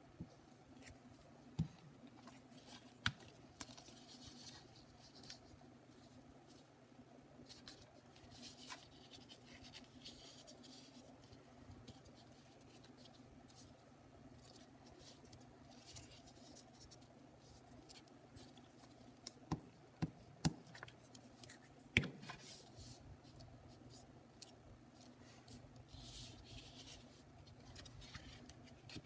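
Torn watercolour-paper strips being handled and rubbed down with a glue stick: faint rustling and scraping of paper in patches, with a few sharp taps, the loudest about twenty-two seconds in.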